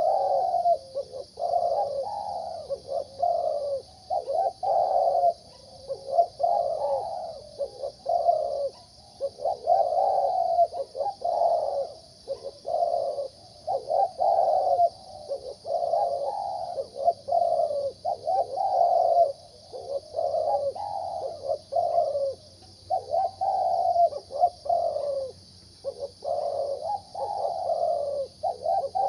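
Zebra dove cooing over and over in short, rhythmic phrases with a middle-pitched voice, each phrase a quick run of notes.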